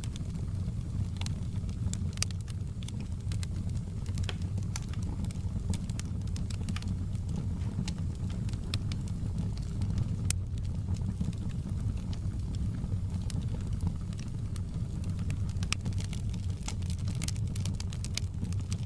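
Wood fire in a fireplace crackling, with frequent sharp little pops over a steady low rumble.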